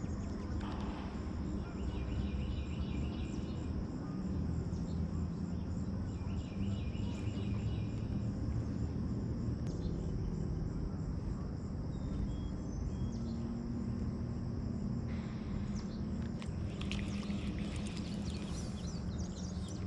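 Steady chorus of insects chirring, with a low rumble underneath and a couple of short pulsing trills. Near the end comes a cluster of clicks as the baitcasting reel is handled.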